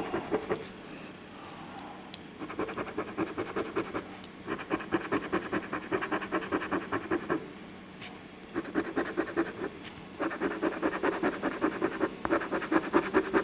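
A penny scraping the coating off a scratch-off lottery ticket in rapid back-and-forth strokes, in about five bursts of one to three seconds each, with short pauses between them.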